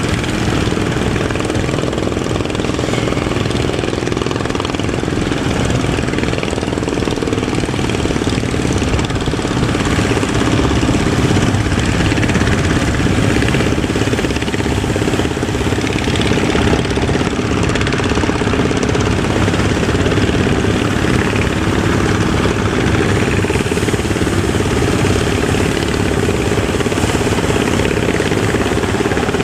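A boat's engine running steadily under way, with a fast, even low beat under a broad rushing noise.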